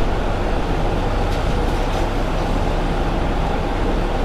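Steady, loud mechanical noise from a running machine or tool, with a low rumble beneath it.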